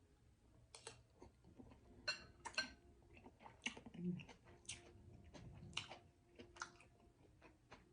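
Quiet close-up eating sounds: a person chewing, with about a dozen short wet clicks and smacks spread through.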